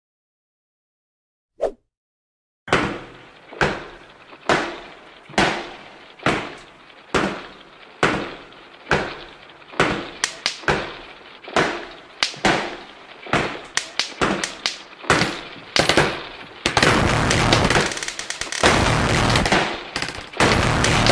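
A run of sharp bangs, each dying away quickly, just under a second apart at first. They come faster and closer together until they merge into a dense volley in the last few seconds.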